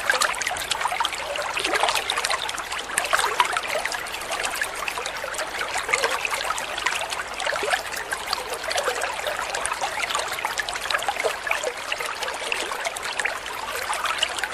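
Water trickling and splashing steadily in a small homemade miniature waterfall.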